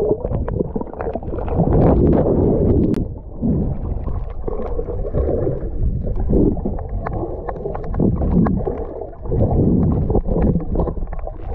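Muffled sound of sea water heard through a submerged camera: low water noise with bubbling and small ticks, swelling and fading every couple of seconds as a swimmer moves past.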